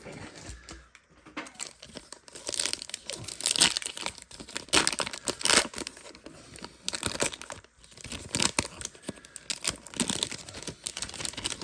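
Wax-paper wrapper of a trading card pack being torn open and crinkled by hand, in irregular crackling bursts.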